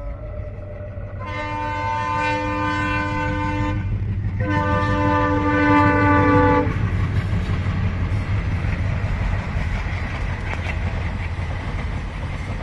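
Passing passenger train sounding two long blasts of its horn, one about a second in and one about four and a half seconds in, each lasting over two seconds. Beneath them runs the steady low rumble of the train rolling along the track.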